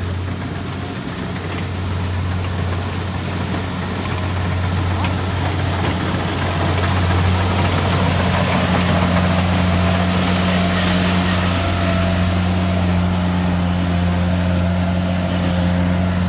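Combine harvester's diesel engine running steadily with a low, even hum, growing louder about halfway through.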